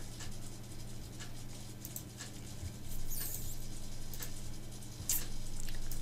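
Several scattered clicks of a computer mouse, irregularly spaced, over a steady low electrical hum.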